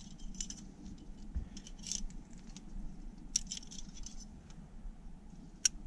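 Metal climbing hardware, a nut and carabiners, clinking in scattered light metallic clicks, with a few short clusters and one sharper click near the end.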